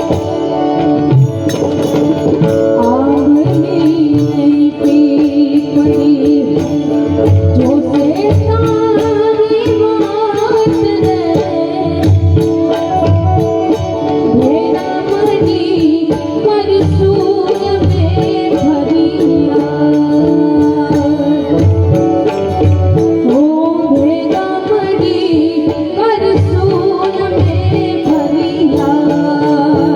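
Loud Indian folk-style music with a woman or man singing over a steady tabla-like drum beat and a sustained pitched accompaniment.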